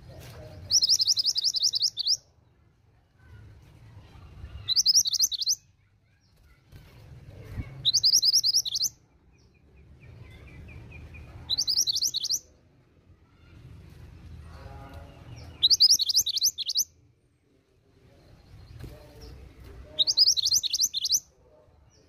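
A female minivet ('mantenan gunung') calling in six loud bursts about four seconds apart, each a rapid run of high, thin notes lasting a second or so.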